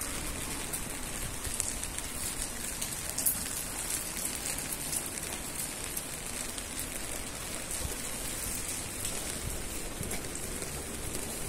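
Steady rain falling on a wet street and pavement, with many small drop ticks scattered through it.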